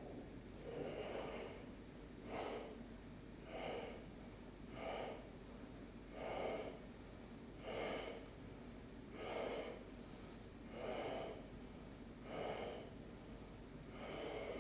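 A person's audible breathing during yoga practice: even, breathy breaths in and out, one about every second and a half.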